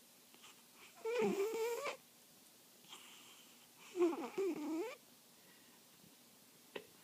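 Two long, wavering, pitched snores about three seconds apart, each lasting about a second, with a short click near the end.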